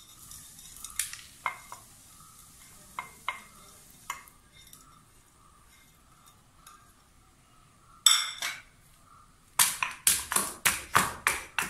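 Spices being scraped off a ceramic plate into a stone mortar, with light scattered clicks and taps. From about eight seconds in, a stone pestle pounds them in the stone mortar in a run of sharp knocks, about three a second, crushing ginger, cardamom and peppercorns.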